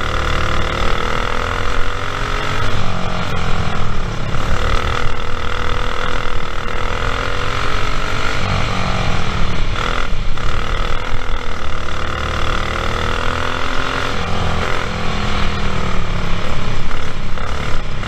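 Dirt-track racing kart engine running hard at high revs, heard from on board. Its pitch dips and climbs back up about every six seconds as the kart slows for the turns and accelerates down the straights.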